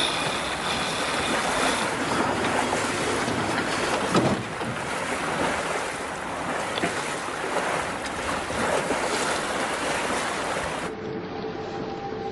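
Wind and sea noise on a sailboat under way, with wind buffeting the microphone and one sharp knock about four seconds in. About a second before the end it gives way to music with steady held notes.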